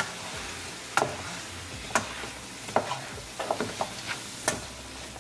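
Wooden spatula stirring cubed round summer squash through spiced oil in a frying pan. It knocks against the pan about once a second over a steady sizzle.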